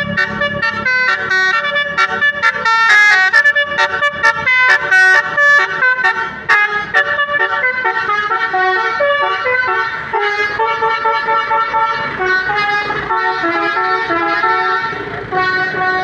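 Telolet 'basuri' melody horns playing a tune: a quick run of short notes for the first several seconds, then longer, overlapping held notes.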